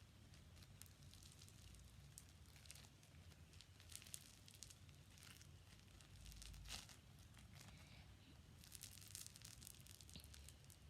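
Faint crackling and popping of a crunchy foam slime being squeezed and kneaded by hand: scattered small pops, with a louder burst about six and a half seconds in and a denser run near the end.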